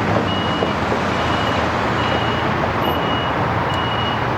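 Vehicle reversing alarm beeping steadily, about once a second, over a steady rumble of engines and traffic.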